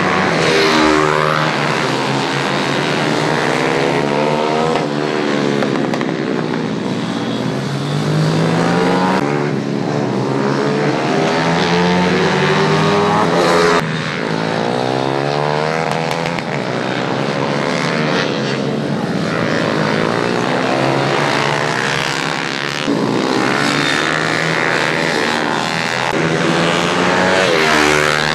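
Small pit bike motorcycle engines racing past, revving up and falling away again and again as the riders brake into corners and accelerate out.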